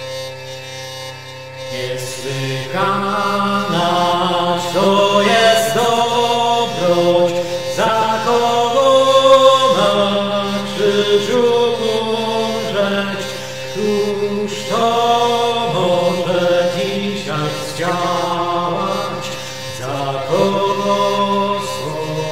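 A single voice singing liturgical chant over a steady drone. The voice comes in about two seconds in and moves in slow phrases while the drone holds.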